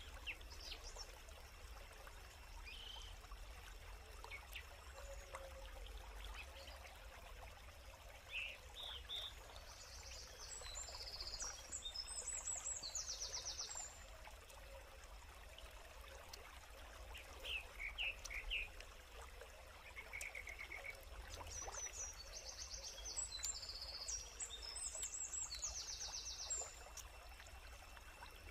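Birds calling: two bouts of rapid, repeated high notes about ten seconds apart, with scattered shorter chirps between them, over the faint steady rush of a stream.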